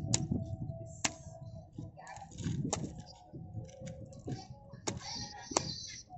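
Sharp knocks of a hand-held stone striking at a moray eel's head on concrete, about five blows spaced irregularly, with scuffing and handling noise between them.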